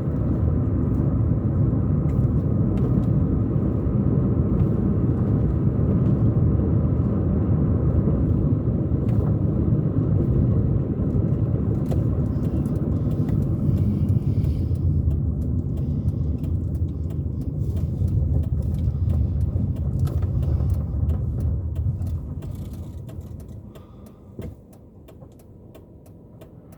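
Car road and engine noise heard from inside the cabin: a steady low rumble that falls much quieter about three-quarters of the way through.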